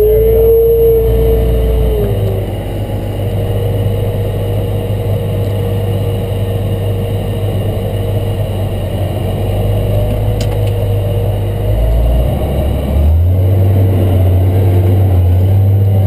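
Cat Challenger MT765C tractor engine running, heard from inside the cab while the grain cart unloads. A higher whine drops and fades about two seconds in, and the engine note shifts then and again near the end as the tractor pulls away from the semi.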